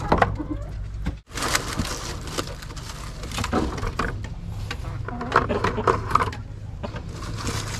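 Hands rustling dry nesting straw and eggs clicking as they are lifted from a plastic nest tub and set into a wicker basket: a string of short knocks and scrapes.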